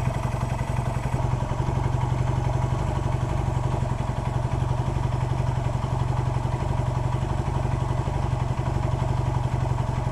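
Honda CL175's small parallel-twin engine idling steadily. It is running to give the new relay flasher enough power to blink the turn signals.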